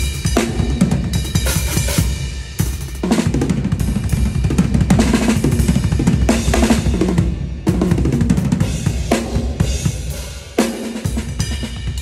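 Acoustic drum kit played solo in a dense, busy pattern of kick drum, snare, toms and cymbals, with a few brief drop-outs between phrases.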